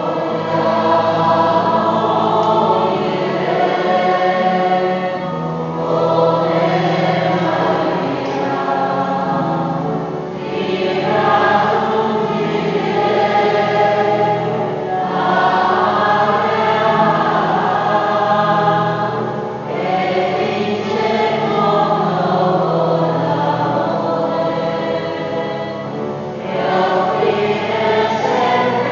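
A church choir, the schola cantorum, singing a hymn in phrases a few seconds long with short breaks between them, over held organ chords.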